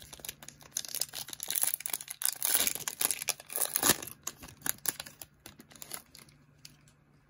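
Foil trading-card pack wrapper crinkling and tearing as the pack is ripped open, a dense crackly rustle that dies down about six seconds in.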